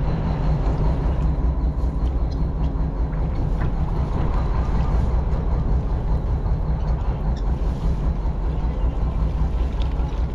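A boat's engine running with a steady low drone.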